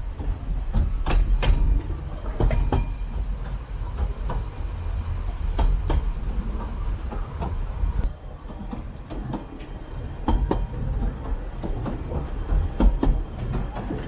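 Narrow-gauge railway carriage running along the track: a steady low rumble with irregular clicks and knocks from the wheels and couplings. The sound turns duller, losing its high hiss, after about eight seconds.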